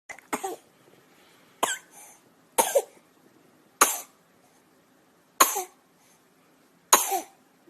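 A child with whooping cough (pertussis) coughing: about six harsh single coughs, one every second or so.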